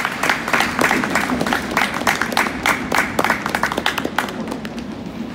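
Audience applauding, with dense clapping that thins out and dies away about four seconds in.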